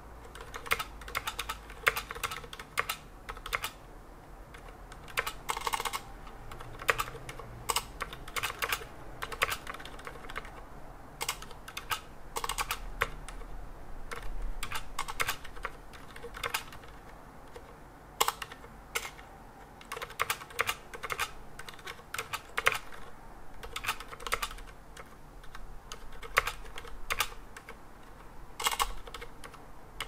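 Typing on a freshly assembled Tex Yoda II mechanical keyboard with Cherry MX switches, testing that the build works: irregular runs of keystroke clicks with short pauses between them.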